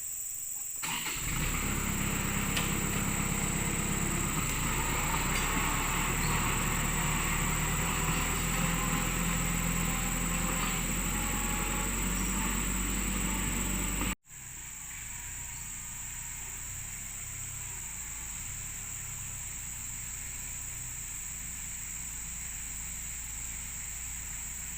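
A machine's engine running steadily, loud from about a second in, then quieter after a sudden break about halfway through. Insects shrill steadily in the background.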